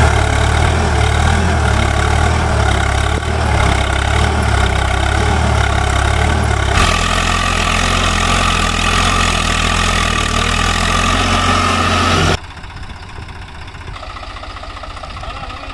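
Tractor diesel engine running loud. Its sound changes abruptly about 7 seconds in, then drops suddenly to a much quieter, evenly pulsing run about 12 seconds in.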